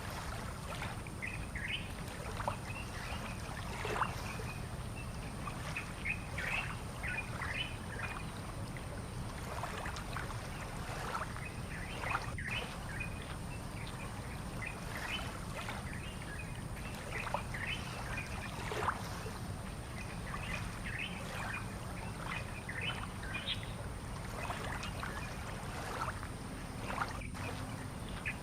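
Small birds chirping and calling in short repeated notes throughout, over a steady low background rumble.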